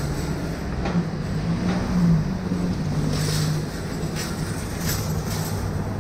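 Motor vehicle engine running with a steady low hum, easing a little about halfway through, over traffic noise.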